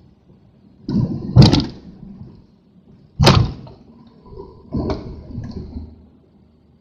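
Three loud thumps: a double knock about a second in, a single sharp one a little after three seconds, and a weaker one near five seconds.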